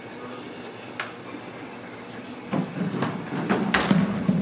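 A kitten pawing at a wooden door with a glass pane: a light tap about a second in, then a run of knocks and rattling thumps against the door, the sharpest knock near the end.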